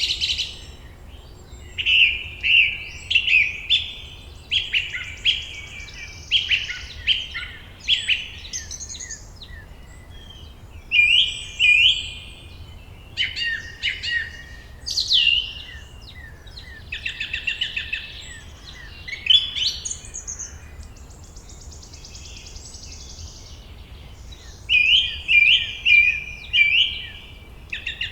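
Forest songbirds singing: phrases of quick, high chirps repeated every few seconds with short pauses between them.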